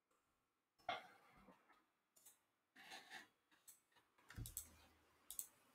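Faint, sparse clicks of computer keyboard keystrokes and mouse clicks, about a dozen spread unevenly over a near-silent background.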